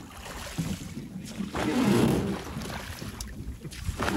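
Water splashing and rushing around a rowed river boat, swelling and fading about every two seconds, with wind rumbling on the microphone.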